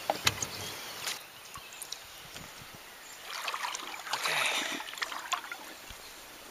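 Shallow creek water splashing and trickling around a hand lowering a channel catfish in for release. There are a few knocks and clicks in the first second, and the splashing picks up from about three seconds in.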